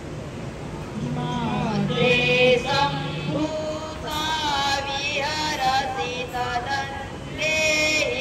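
A group of schoolboys singing together into microphones, starting about a second in and continuing with brief breaks between phrases.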